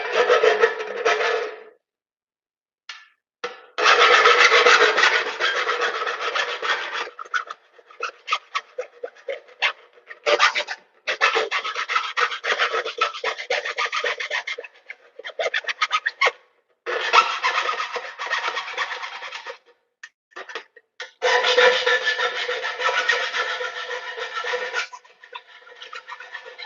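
Hand file scraping the cut edges of a hole in a metal electrical box to remove sharp burrs, in about five runs of rapid strokes separated by short pauses, the box ringing faintly under the file.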